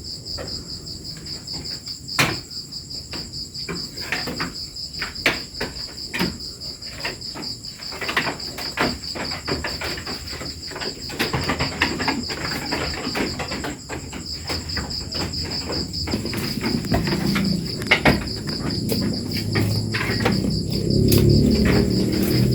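Crickets chirring steadily, with many irregular short knocks and clatters throughout. Low sound builds up over the last few seconds.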